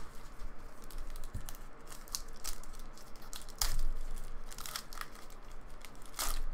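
Gold foil trading-card pack being torn open and crinkled by hand: a run of sharp crackles, with louder rips a little past halfway and again near the end.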